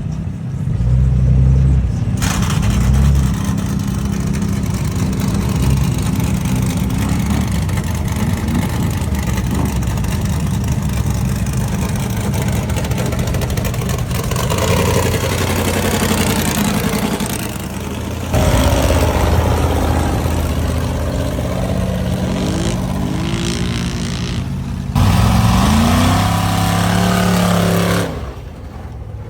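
Ford Mustang's engine running hard and revving as it is driven off-road, its pitch rising as it accelerates about 25 seconds in. The sound changes abruptly several times, as if it jumps between takes.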